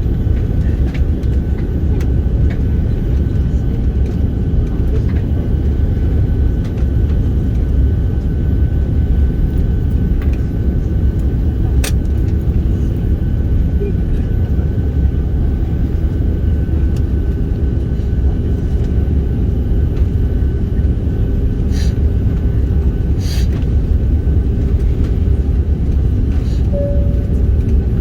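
Airbus A330-300 airliner in flight, its engines and airflow making a steady, loud low rumble with a faint steady whine above it. A few light ticks and a brief short tone near the end sound over it.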